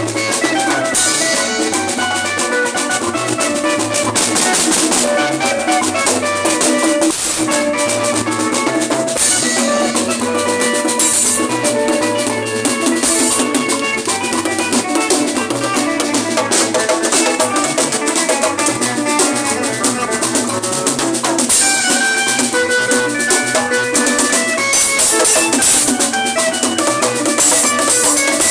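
Music with a steady drum kit beat and many bright, quick melodic notes, loud and continuous.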